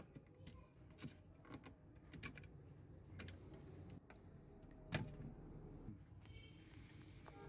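Scattered sharp clicks and taps of plastic cable connectors and a circuit board being handled inside a DVD player's sheet-metal chassis, about half a dozen, the loudest about five seconds in. A short high scrape near the end.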